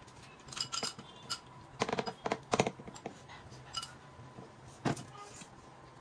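Metal spoon and fork clinking and scraping against a small glass bowl and the tabletop while eating, in irregular sharp clicks, some ringing briefly, bunched in the first three seconds and again about five seconds in.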